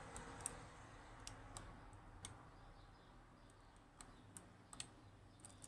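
Faint, irregular metallic clicks, about nine of them, from a lock pick working the pins inside a Yanai R 2200M high-pin-count lock.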